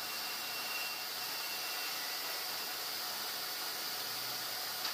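Steady machinery noise of a sawmill band saw running, an even hiss-like sound with a faint high whine and a low hum beneath, without distinct cutting strokes.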